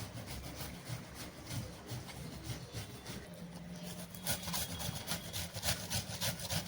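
An onion being grated on a hand grater: repeated rasping strokes, faint at first, then louder and steadier from about four seconds in, at roughly three strokes a second.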